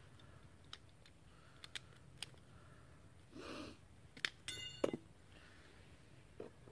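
Faint, scattered sharp snaps and clicks of someone moving among dry sticks and twigs on the forest floor. A short rustle comes about halfway through, then a brief squeak and two louder clicks.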